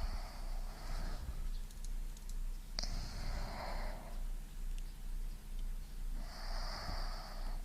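Slow breathing recorded close up: the tail of one breath, then two long, airy breaths a few seconds apart, the first starting with a sharp click. A steady low hum runs underneath.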